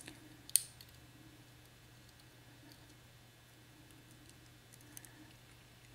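A few faint small metal clicks from handling the pins and springs of a disassembled lock cylinder, the sharpest about half a second in, over a low steady hum.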